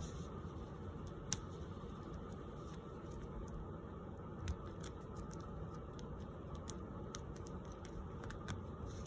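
Steady low background rumble with a few scattered light clicks, one sharper click about a second in.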